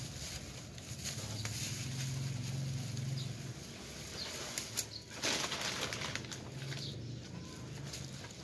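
Plastic sack rustling and crinkling as hands work inside it, with a few sharp clicks and a louder rustle about five seconds in.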